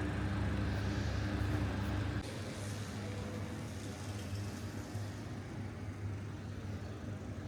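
Steady engine hum of a road vehicle amid outdoor street noise, cutting off abruptly about two seconds in and leaving a quieter background of traffic.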